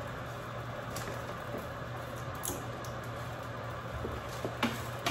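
Steady hiss and low hum of pots heating on the stove, with a few light knocks of pans and utensils near the end.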